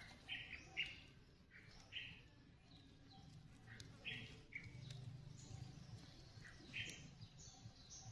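Faint short bird chirps, one every second or two, over quiet outdoor background.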